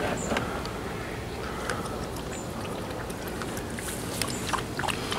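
Water trickling and lapping in a plastic kiddie pool: a steady soft hiss with a few faint small clicks.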